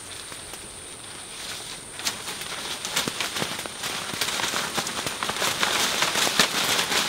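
Ripe mulberries shaken from the tree and falling onto a plastic tarp: a dense patter of small ticks, sparse at first and thickening about two seconds in.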